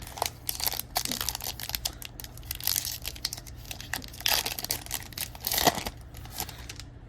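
A hockey card pack's plastic wrapper crinkling and tearing as it is opened, in a run of irregular crackling rustles, loudest about five and a half seconds in.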